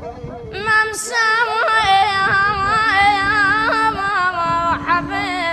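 A singer performing an Arabic mawwal: one long, highly ornamented sung phrase with the pitch wavering and turning, over a steady low held note that comes in about halfway through.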